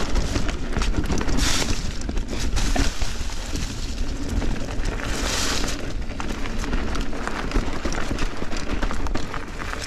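Giant Trance 29 mountain bike riding fast over dirt singletrack: knobby tyres rolling over the trail under a low rumble, with steady rattles and knocks from the bike. Two short hissing surges, about a second and a half in and again about five seconds in.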